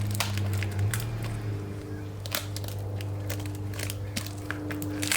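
Packaging being handled and opened: crinkling and crunching of wrapping, with scattered clicks, over a steady low hum.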